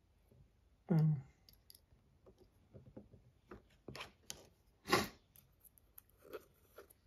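Small metal and plastic folding-knife parts clicking and tapping as the knife is handled and put back together, a string of short sharp clicks with two louder knocks, about a second in and about five seconds in.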